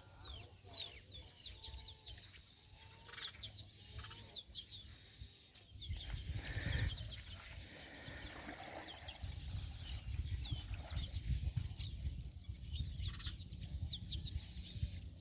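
Birds chirping, many short high calls that sweep downward, repeating throughout, with a low rumble underneath from about six seconds in.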